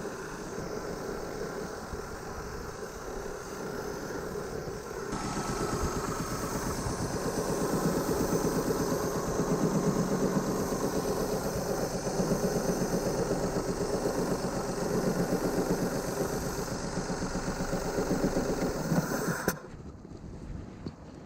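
Daihatsu Move L150S 660 cc three-cylinder engine running. About five seconds in the exhaust note gets louder and fuller, and near the end it cuts off suddenly to a quieter background. It is the loud exhaust note that the owner puts down to a failed middle ignition coil leaving the engine firing on two cylinders.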